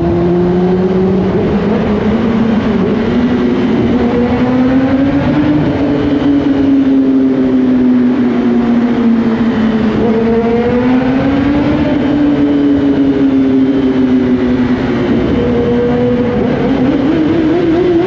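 Kawasaki ZX-10R's inline-four engine running loud at high revs, its pitch rising and falling slowly over several seconds.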